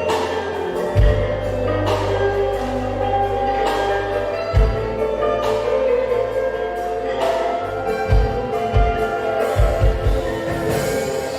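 Instrumental band music: sasandos (palm-leaf tube zithers from Rote) plucking ringing, bell-like notes over held electric bass notes, with low drum hits, several in quick succession near the end.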